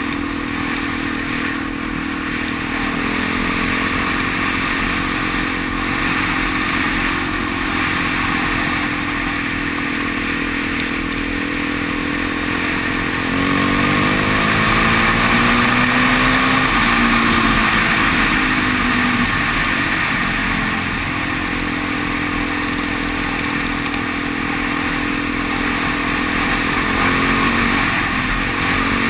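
Dual-sport motorcycle engine running at road speed, with steady wind noise on the microphone. About halfway through the engine note jumps up and then slowly falls back, and near the end it dips briefly and climbs again.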